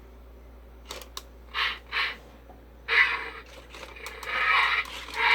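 Jia-Qi Robosaur robot dinosaur's motors and plastic gears running in stop-start bursts, with two sharp clicks about a second in and a longer, building whir near the end. The toy has a loud grinding noise, which the owner puts down to a broken spring.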